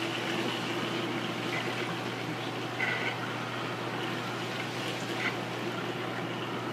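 Steady rush of moving water and pump hum from a reef aquarium's circulation pumps, with a brief faint sound about three seconds in.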